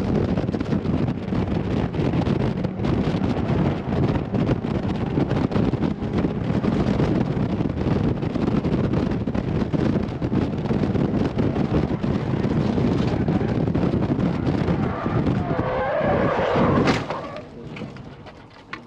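Mazda MX-5 roadster driven hard on a race track with the top down: its engine runs under heavy wind rush. About fifteen seconds in, the tyres squeal in a wavering tone, then a sharp knock comes and the sound dies away.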